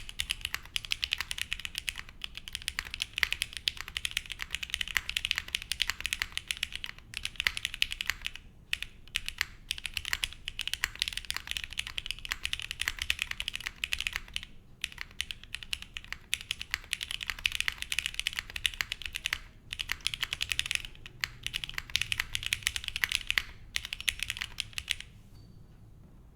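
Custom mechanical keyboard being typed on fast and continuously: a plateless Laminar Design Leviatán R0 with lubed and filmed Gateron X switches and GMK Taro keycaps. The key clicks run in dense streams broken by a few short pauses, and the typing stops near the end.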